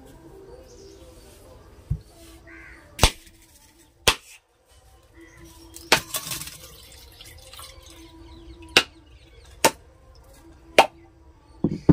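Knife blade striking the shell of a whole coconut to crack it open: about eight sharp knocks at uneven intervals.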